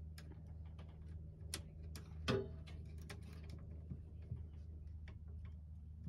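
Circuit breakers being pressed and fitted back into an RV breaker panel: a scatter of small plastic clicks and snaps, the loudest a little over two seconds in, over a low steady hum.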